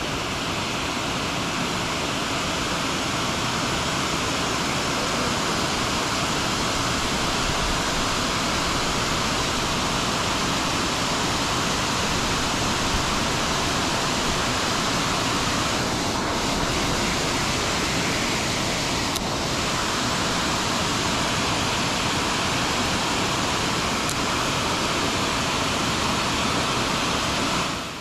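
Steady rush of fast-flowing creek water, an even unbroken hiss.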